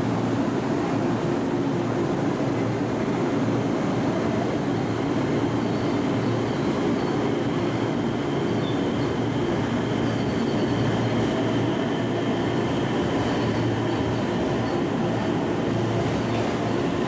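A railway train's steady running noise, with a few steady humming tones and no rise or fall.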